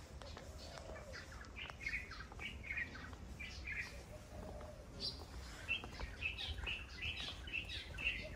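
Small birds chirping in quick runs of short, high calls, one run about two seconds in and a busier one from about five and a half seconds in.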